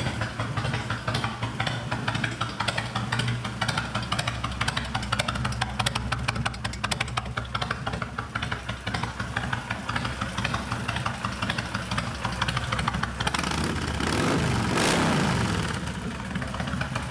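2004 Kawasaki Vulcan 1600 Mean Streak's liquid-cooled, fuel-injected V-twin idling through Vance & Hines aftermarket pipes, then revved once near the end, the pitch rising and falling back to idle.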